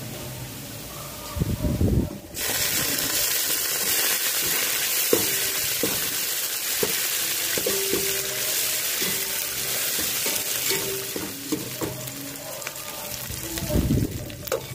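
Chopped greens hitting hot oil with fried onions and whole spices in a steel pot: a loud sizzle starts suddenly about two seconds in and keeps going. A steel slotted spoon clinks and scrapes against the pot as the mixture is stirred, with a dull thump just before the sizzle starts and another near the end.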